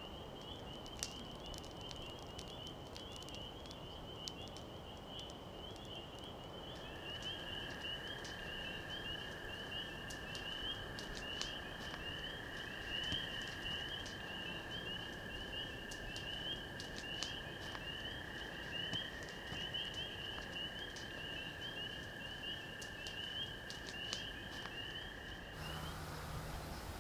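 Campfire crackling with scattered sharp pops, over a continuous high, pulsing trill chorus of frogs. A second, lower steady trill joins about seven seconds in, and both stop shortly before the end.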